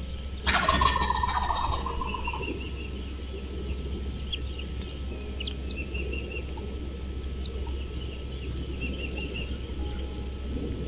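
A loud, rapid bird call about half a second in, falling in pitch over a second and a half, followed by faint scattered chirps of small birds.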